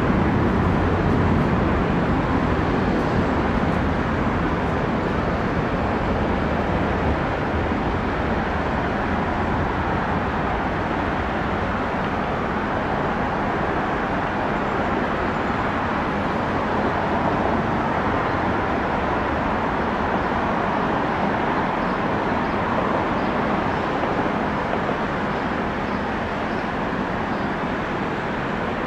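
Jet aircraft engine noise: a loud, steady rush that slowly grows fainter.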